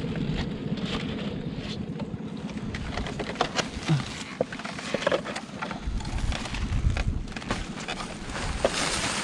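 Irregular knocks, clicks and rustling from people moving about and handling nets, sacks and bamboo poles on a bamboo fish corral. Under it runs a low rumble with a faint steady hum, with wind on the microphone.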